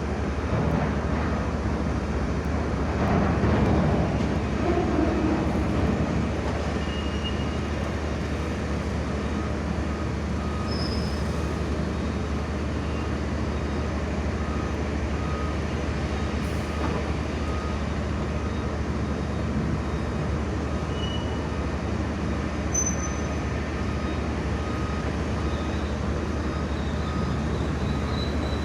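Excavator diesel engine running with a steady low drone, swelling briefly with a shifting pitch about three to five seconds in.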